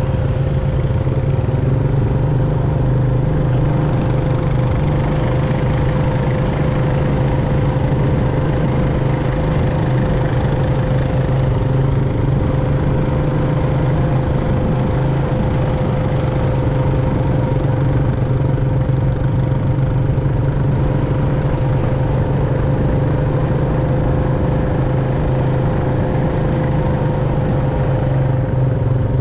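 ATV engine running steadily under way: an even drone that holds one pitch throughout, with no revving up or down.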